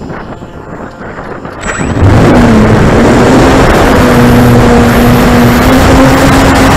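Electric motor and propeller of an RC Corsair model plane throttling up about two seconds in, then running steadily at high power for takeoff: a loud, steady hum over a rushing noise on the onboard camera's mic.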